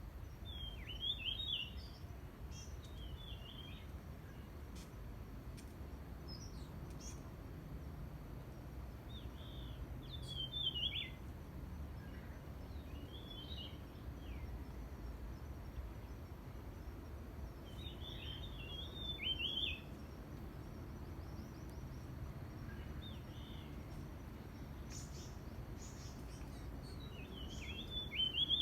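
A songbird singing a short, quick phrase about every nine seconds, four times, with fainter chirps from other birds in between, over a steady low forest background rumble.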